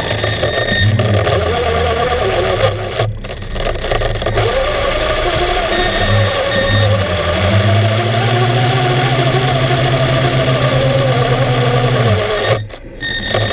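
Underwater noise of scuba divers' regulators and rising exhaust bubbles, heard through the camera's waterproof housing. A low droning hum joins in past the middle and stops about a second before the end.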